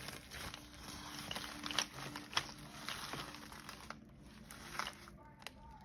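Small bag being opened and handled, crinkling and rustling with scattered sharp crackles, which thin out after about four seconds.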